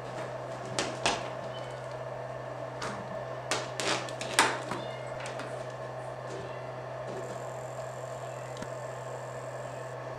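A handful of short knocks and bumps, bunched in the first half, the loudest about four seconds in, over a steady low hum.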